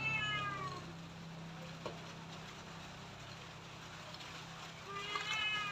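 A domestic cat meowing twice: one call at the start that falls in pitch, and another about five seconds in. A low steady hum dies away in the first couple of seconds.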